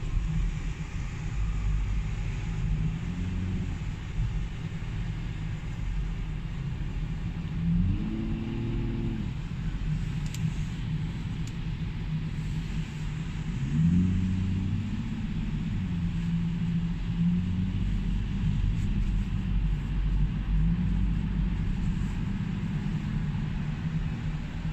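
Car engine and road noise heard from inside the cabin while driving in traffic, a steady low rumble. The engine note rises as the car speeds up, about 8 seconds in and again about 14 seconds in.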